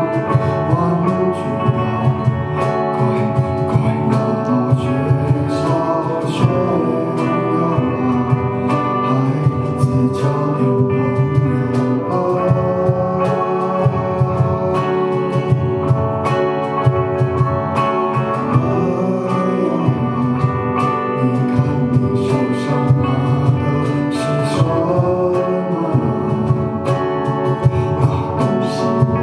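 Live rock band playing a song, with guitars and drums keeping a steady beat and a singer's voice over them.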